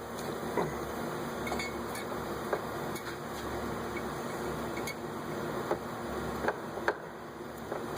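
Scattered metallic clinks and light knocks of metal parts and tools being handled, over a steady background hiss.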